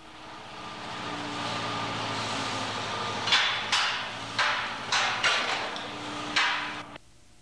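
Metal clanking as an engine is hoisted out of a car on a chain hoist: about seven sharp, ringing metallic knocks in the second half, over a steady machine hum. It cuts off abruptly near the end.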